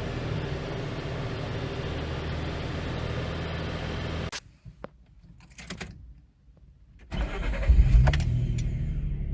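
2007 Nissan Xterra's 4.0-litre V6 running at idle, then cutting out abruptly about four seconds in. After a quiet spell with a few light clicks it starts again about seven seconds in, flares loudly and settles back to idle. The owner suspects an exhaust leak and rattle, with a P2A00 oxygen-sensor code.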